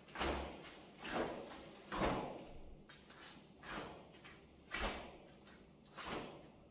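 A taekwondo poomsae being performed: the dobok uniform snapping with each technique and bare feet stepping onto foam mats. There are six sharp snaps about a second apart, each trailing off briefly.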